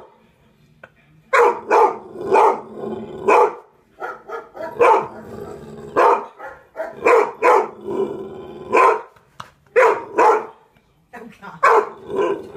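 Dogs barking about a dozen times, in single barks and quick pairs: a dog on a television video and a pet dog barking back at the screen.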